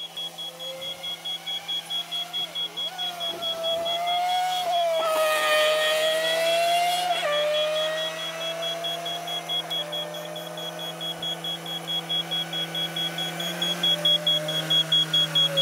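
Telehandler's diesel engine running steadily as it tows a race car on a rope, with a rapid electronic beeping alarm throughout. Race car engines rise and fall in pitch as they pass on the track, the loudest about five to seven seconds in.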